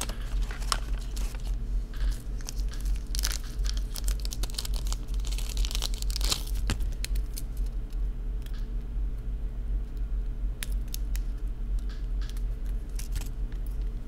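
Crinkling and tearing of small packaging, with scattered light clicks of handling, over a steady low electrical hum; the rustling comes in short bursts, heaviest around the middle.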